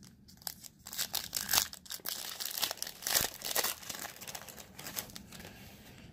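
Foil trading-card pack being torn open and its wrapper crinkled in the hands, a run of sharp crackles that is loudest from about one to four seconds in and then dies down.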